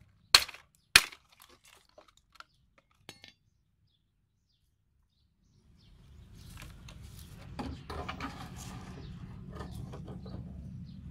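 A machete chopping into the plastic blades of an electric fan: two sharp hits within the first second, then a few faint clicks. After a silent gap, light clicks and rattles as the fan's wire guard is handled, over a steady low hum.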